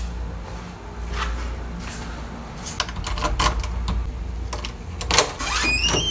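Scattered clicks and knocks of a door's lever handle and latch being worked, over a low steady hum. Near the end a door hinge squeaks in a short rising tone that levels off and holds.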